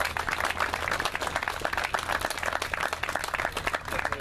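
Crowd applauding: many hands clapping in a dense, irregular patter.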